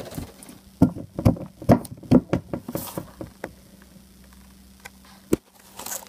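A plastic toy figure tapped along a paper-covered floor to make it walk: a run of light knocks, about two a second, then one more knock near the end.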